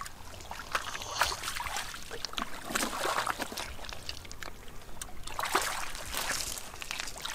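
Shallow muddy water splashing and sloshing as hands grope through it for fish, in irregular splashes that come and go.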